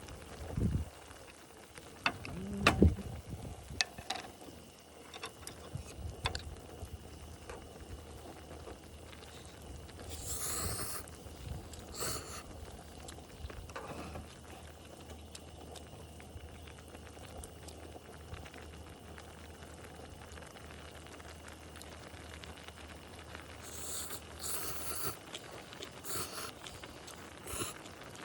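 Spoons and chopsticks clicking and knocking against a pot and bowls while instant noodles are eaten, with short hissy noises and a low steady hum underneath.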